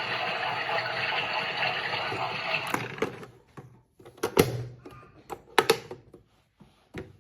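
Water rushing steadily into a washing machine, stopping about three seconds in, followed by a few separate sharp clicks or knocks.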